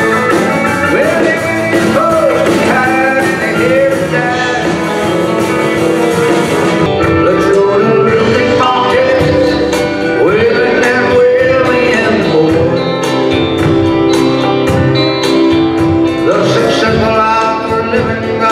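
Country band playing live with electric guitars, bass and drums, and a voice singing. About seven seconds in, the music changes abruptly to a different song.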